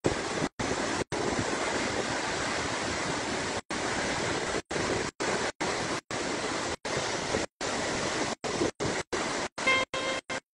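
Floodwater rushing over a dam spillway, a steady, dense rush that cuts out for an instant many times, more often toward the end. Near the end, a few steady tones of music come in.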